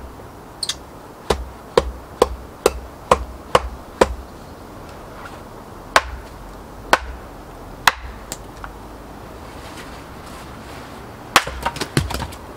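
Axe splitting small kindling on a wooden chopping block, with repeated sharp wooden knocks of the blade into the stick and block. The knocks come about two a second at first, then singly, then in a quick cluster near the end.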